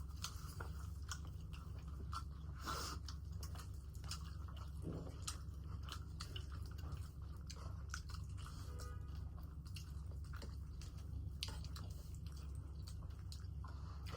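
Mouth chewing close to the microphone: many small wet clicks and crunches of food being bitten and chewed, over a steady low hum.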